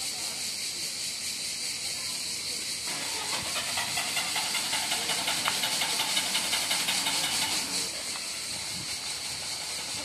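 Street ambience with a steady high hiss, and a vehicle passing on the road alongside that swells louder from about three seconds in and fades just before the eighth second.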